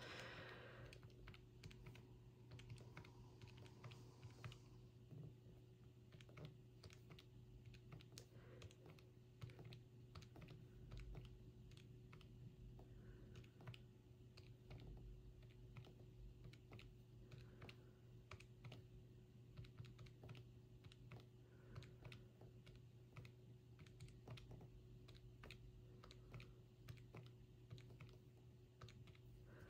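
Faint, irregular clicking of keys being typed on, several clicks a second, over a low steady hum.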